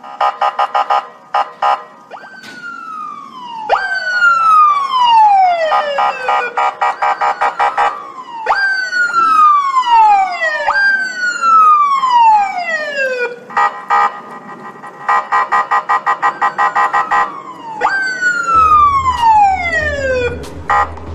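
Electronic police siren switching between modes: a fast pulsing warble, then repeated whoops that jump up sharply and slide down over about two seconds each, then back to the fast pulsing.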